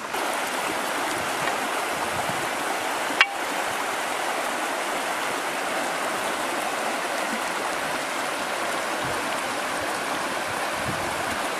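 Shallow, rocky river running steadily over stones and small riffles, with one sharp click about three seconds in.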